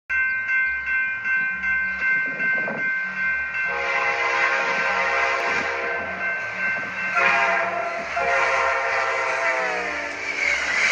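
Amtrak F40PH diesel locomotive with a Nathan K5LA five-chime air horn: a steady high whine over a low rhythmic rumble, then the horn sounds two long blasts, the second sagging slightly in pitch near its end.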